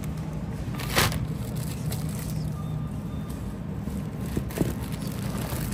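Grocery store background hum, steady and low, with a brief sharp crackle about a second in and two fainter ones near the end.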